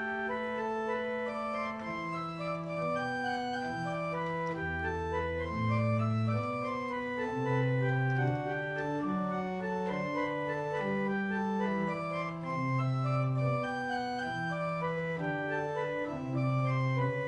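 Pipe organ playing a slow piece in several parts: held chords over a moving bass line, each note sustained before the next.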